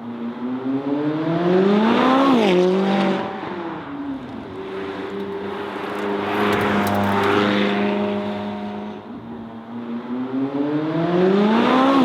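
McLaren 570GT's twin-turbo V8 running hard: its note climbs to a peak about two seconds in and drops sharply, holds steady for several seconds, then climbs and drops sharply again near the end.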